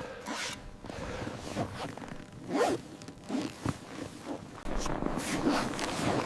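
A series of short, irregular scraping and rustling strokes, some quick and zipper-like.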